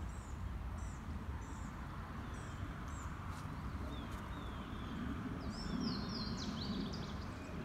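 Small birds chirping over a steady low outdoor background noise: a run of short, high chirps about every half second, then a few lower notes sliding downward, and a quick cluster of chirps a little before the end.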